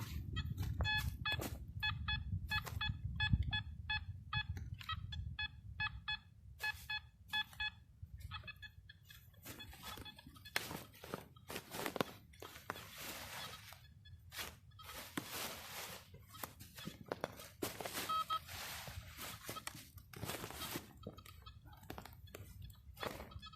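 Metal detector giving a run of short electronic beeps, about three a second, for the first several seconds as it passes over a target. After that come irregular crunching and scraping noises, with one more short tone near the end.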